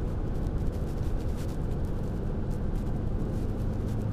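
Steady engine and road noise inside the cab of a moving Ford Super Duty pickup.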